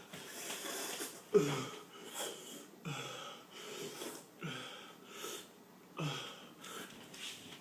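A man breathing hard and wheezing from the burn of a very hot chili pepper, with sharp, noisy breaths about every second and a half.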